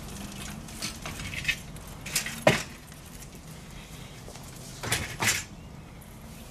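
Several clinks and knocks of things being handled, likely the door, basket or trolley. The loudest is a sharp knock about two and a half seconds in, with two more close together near five seconds.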